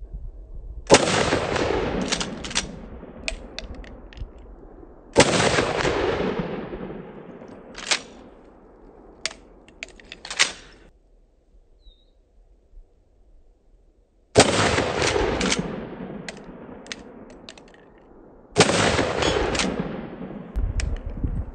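Four 12-gauge shotgun blasts from Mossberg pump shotguns firing 00-buckshot, in two pairs about four seconds apart with a long pause between the pairs. Each shot cracks sharply and then fades away slowly. A few short sharp clicks follow the shots.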